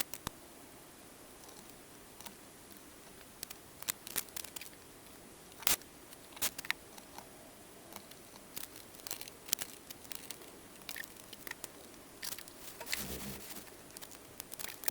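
Scattered small clicks and taps with a short rustle near the end, from hands handling parts of a reel-to-reel tape deck's transport.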